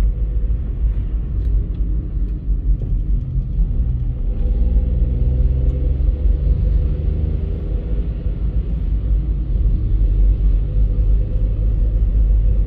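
A car driving, heard from inside the cabin: a steady low rumble of engine and tyres on the road, with the engine's hum shifting slightly in pitch as the speed changes.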